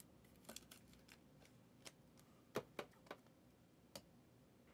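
Faint clicks and taps of clear plastic card holders and cards being handled, with a few sharper clicks about two and a half to three seconds in.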